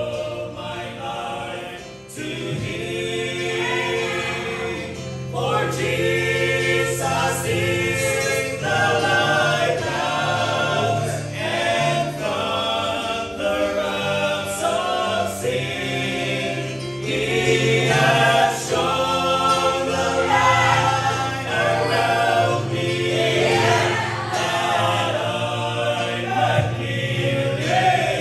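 A male vocal group of five singing a gospel song in harmony through microphones, in sustained phrases with brief breaths between them.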